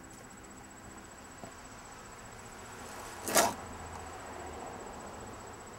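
Faint, steady high-pitched insect trill, like crickets, over low background hiss. A little over three seconds in comes a single short, loud rustle.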